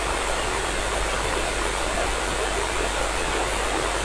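Steady, loud FM receiver hiss: open-squelch noise from a radio receiver tuned to the ISS 145.80 MHz downlink, heard because the space station's transmitter has stopped sending between replies.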